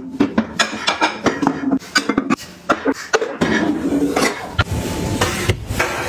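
Kitchenware being handled and set down: a quick run of clicks and knocks, turning into denser clatter and rubbing about halfway through.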